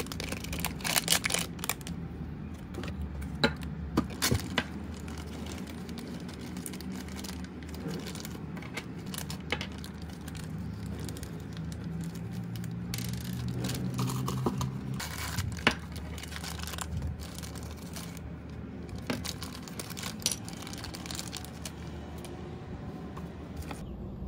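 Clear plastic bags crinkling while small hard plastic figure pieces are unwrapped and handled, with sharp clicks and taps as the pieces are set down and fitted together. The clicks come thickest in the first few seconds and then come and go.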